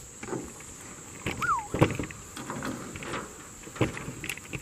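Fish frying in oil in a small stainless steel pan, sizzling, with a few sharp knocks and one short falling squeak.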